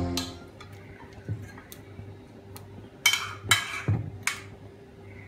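Intro music cutting off at the start, then kitchen handling sounds of a plastic oil bottle and a nonstick frying pan on the stovetop. A few light clicks come first, then several short scraping, rustling noises about three to four seconds in, over a faint steady hum.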